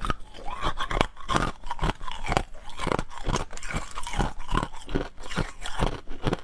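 Close-miked crunching of hard frozen ice being bitten and chewed, a steady run of sharp cracks, about three a second.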